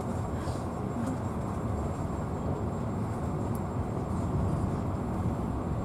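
Steady rumble of a passenger train carriage running along the track, heard from inside the coach.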